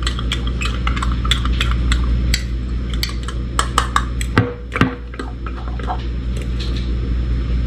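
A metal utensil clinking and scraping against a small glass bowl while stirring a thick mayonnaise dipping sauce, in irregular quick clicks over a steady low hum.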